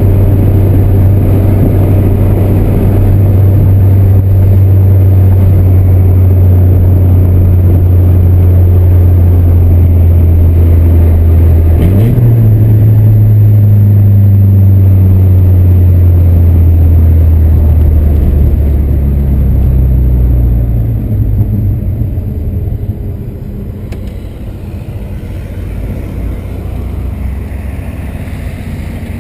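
Volkswagen Santana's 2.0 AP four-cylinder engine and exhaust droning steadily as the car drives. About twelve seconds in the pitch jumps up and then slowly falls. A little after twenty seconds the drone drops away to a quieter rumble.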